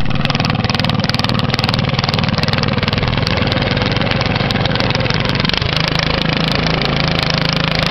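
Riding lawn mower engine running loud and steady, with a fast firing rhythm; about five and a half seconds in the engine note changes and settles lower.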